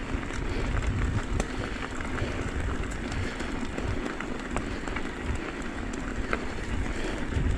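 Steady rustling and low rumble with scattered small clicks and ticks, the noise of moving along a dirt trail.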